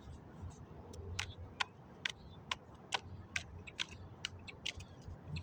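A bird giving short, sharp chip notes over and over, about two a second, over a faint low rumble.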